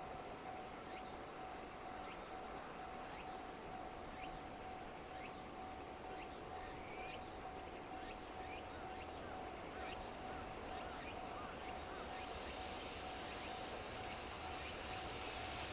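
Quiet outdoor ambience beside the railway: a faint steady high tone with faint chirps about once a second, while a low rumble slowly grows louder near the end.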